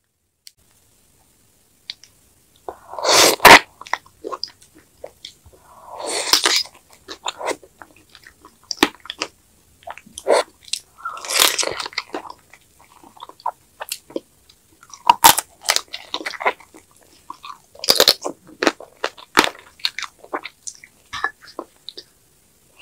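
Close-miked eating of soy-sauce marinated raw crab: several loud wet sucking bursts a few seconds apart as the meat and roe are drawn from the shell. Between them come chewing, crunching and small wet mouth clicks.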